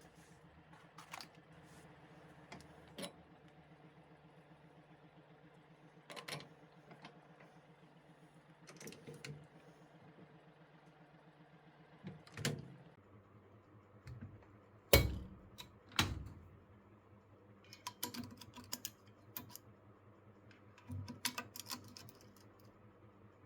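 Scattered clicks and light metallic clinks of small tools or parts being handled, with a sharper knock about halfway through, over a faint steady hum.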